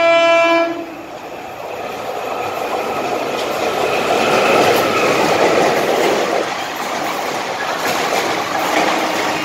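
A WCAM2 electric locomotive's horn sounding and cutting off about half a second in, then the locomotive and its express coaches passing at full line speed: a rising rumble of wheels on rail that peaks midway, with a rhythmic clickety-clack of the coach wheels over rail joints in the later seconds.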